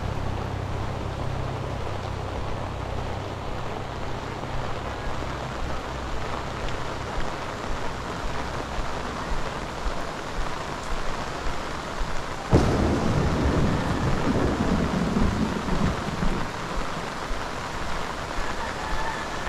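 Heavy rain falling steadily. About twelve and a half seconds in comes a sudden crack, followed by a few seconds of low rumbling thunder. A low engine hum fades out over the first few seconds.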